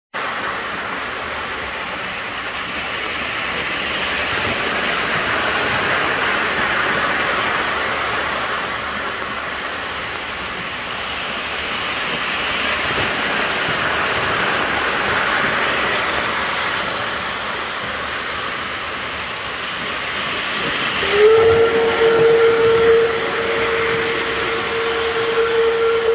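O scale model trains rolling around the layout, a steady rushing noise that swells and fades as they pass. About 21 seconds in, a model locomotive's electronic whistle sounds one long steady note that lasts about six seconds.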